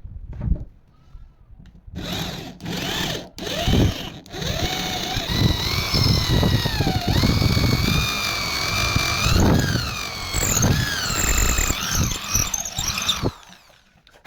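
A power tool runs for about eleven seconds, its high whine wavering up and down in pitch as it works. It cuts off abruptly near the end.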